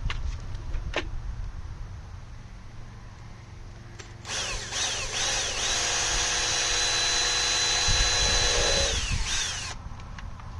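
Power drill with a 5 mm bit drilling open the holes in a Tesla Wall Connector's back plate: about four seconds in the motor revs up in a few short pulses, then runs steadily for about four seconds and winds down. A couple of light clicks of handling come before it.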